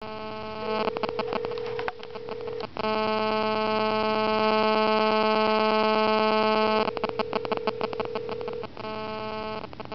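Cell phone radio interference picked up on the recording: a loud, buzzing electronic static made of rapid pulses, its pattern switching every second or two while the phone places a call.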